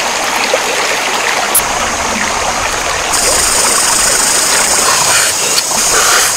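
Stream water running steadily, with a high, steady hiss joining about three seconds in.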